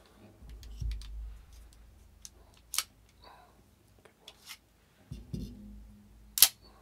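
Sharp metallic clicks of pistols being handled for a safety check: a loud click about three seconds in and another near the end, a couple of lighter clicks between, and dull knocks of the guns being picked up and set down.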